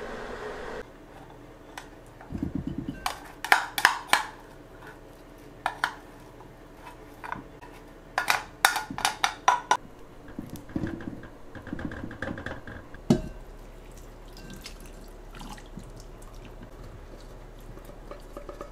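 Kitchenware handling: dishes and utensils clinking and clattering in two busy clusters, with a few dull thuds and a single sharp knock about two-thirds of the way through.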